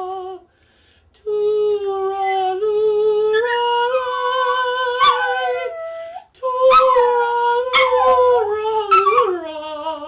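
Long-haired chihuahua howling along to a sung lullaby: two long stretches of held, wavering howls that slide down in pitch, the dog matching the tune as it sings along.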